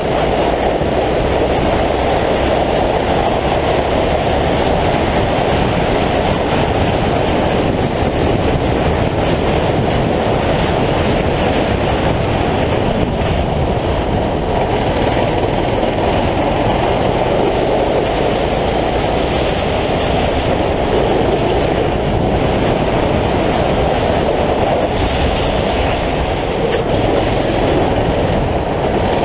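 A 9 hp racing kart's engine running hard at speed on the track, heard onboard as a loud, steady, muffled drone mixed with wind and tyre noise.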